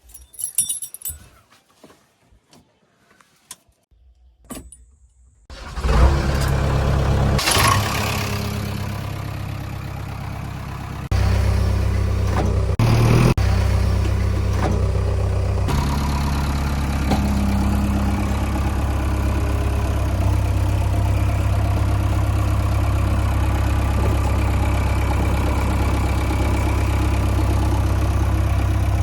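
A few faint clicks and rattles. About six seconds in, the loud, steady running of a heavy diesel machine's engine comes in suddenly and continues, with abrupt jumps in its sound twice where the footage is cut.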